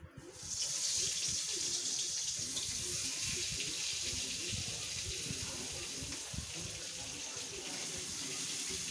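A steady hiss comes up sharply about half a second in and holds at an even level.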